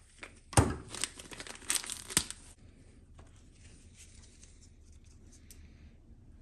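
Small clear plastic parts bag being torn open and crinkled in nitrile-gloved hands: a quick run of sharp crackles in the first couple of seconds, then only faint handling ticks.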